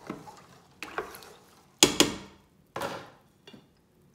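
A handful of sharp knocks and clinks against a stainless steel cooking pot on the stove, each ringing briefly. The loudest is a quick pair about two seconds in.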